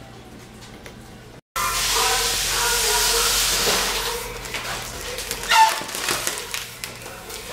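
A person blowing by mouth into a gold foil letter balloon to inflate it: a loud rushing hiss of breath starts about a second and a half in, after a moment of quiet room tone, and eases after a few seconds into softer, uneven blowing.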